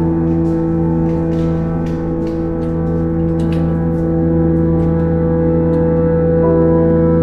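Ambient background music of sustained, gong-like held tones, shifting to a new chord about six and a half seconds in, with light irregular clicks over the top.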